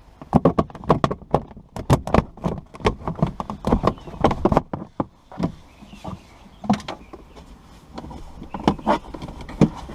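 Irregular clicks and knocks of plastic interior trim panels being handled and pried loose in a Honda S2000, thick and rapid in the first half and sparser after.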